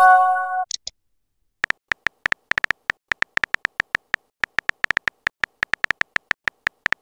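A phone messaging app's message-sent chime, a short bright chord, at the start, then after a brief pause a run of quick virtual-keyboard tap clicks, a few a second, as a reply is typed.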